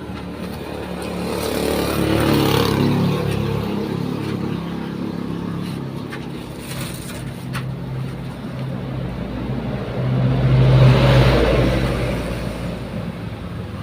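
Motor vehicles running on a road, with engine hum throughout. The sound swells as a vehicle passes about two seconds in and again, louder, around ten to twelve seconds in.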